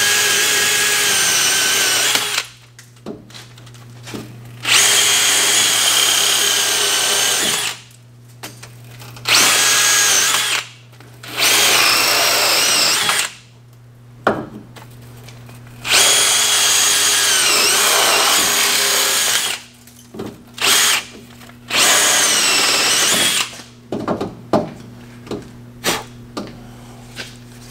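Drill spinning a wire cup brush inside a truck's steering-knuckle hub bore, scouring out rust, in repeated bursts of one to four seconds; its whine dips in pitch now and then as the brush bites. A few short clicks and knocks near the end.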